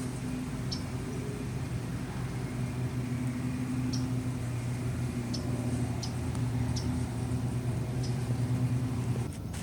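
Steady low drone of an engine or motor, with short high chirps now and then over it; the drone cuts off suddenly near the end.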